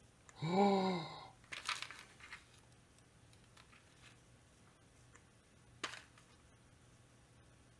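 A short hummed "hmm" from a man's voice, its pitch rising then falling, followed by scattered clicks and light rattles of small screws being sorted through in a parts box, with one sharp click about six seconds in.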